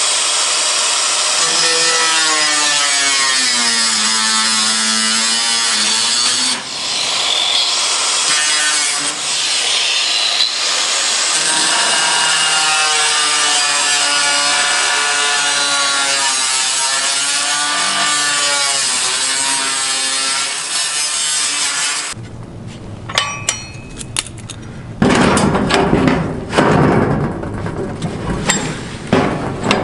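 Corded angle grinder cutting through steel sheet-metal siding, its motor pitch sagging and rising as the disc bites and eases off. About 22 seconds in the grinding stops, giving way to quieter knocks and handling clatter.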